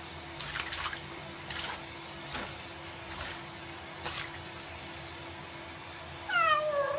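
Tap water running steadily into a sink where a cat is lying in the water, with several small splashes as the cat moves. Near the end comes one short meow that falls in pitch.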